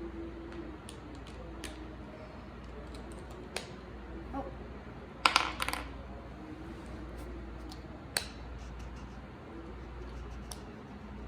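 Scattered light clicks and taps from small objects being handled, with a quick cluster of sharp, louder clicks about five seconds in and a single sharp click about three seconds later.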